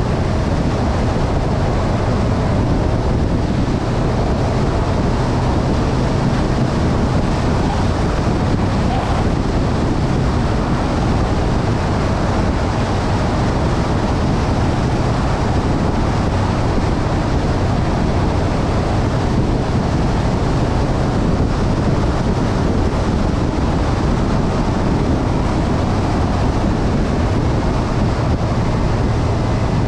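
Motorcycle riding along at a steady speed, its engine running as a low drone under heavy wind rushing over the camera microphone.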